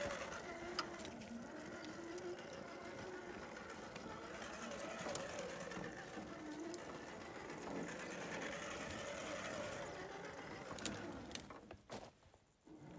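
1/10-scale Axial SCX10 II RC rock crawler driving over loose stones: its electric motor and gears whine, the pitch wavering with the throttle, with scattered sharp clicks of rock and twigs under the tyres. The sound drops away about a second before the end.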